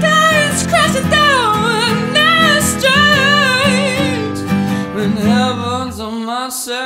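Male rock singer's voice holding and bending a high, wavering wordless vocal line over a strummed acoustic guitar backing track. The low accompaniment drops out about six seconds in, and a new sung phrase begins near the end.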